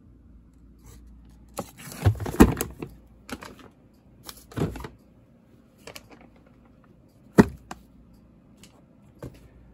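Irregular knocks and scrapes of cardboard firework boxes being handled and shifted, the sharpest knock coming about seven seconds in.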